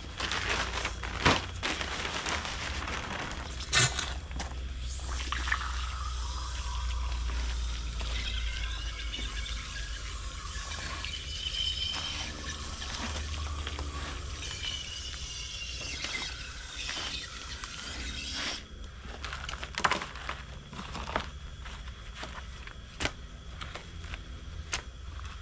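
Potting soil being scooped and scraped with a trowel in a plastic tub and pressed into small plastic nursery pots, with a few sharp knocks from the plastic pots being handled. A steady low hum runs underneath.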